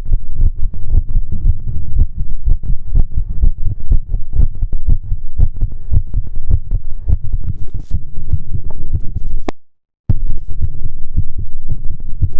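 A close-miked heartbeat recording: loud, deep, low thumps in a steady run. The sound cuts out completely for about half a second near the end, then picks up again.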